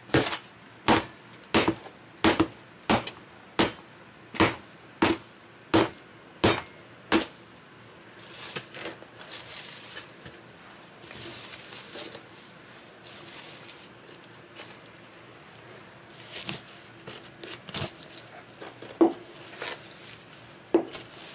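Hammer striking a rotten particleboard subfloor, a steady run of blows about three every two seconds for the first seven seconds. Then softer scraping and crumbling as the soft board is broken out, with a few scattered knocks near the end.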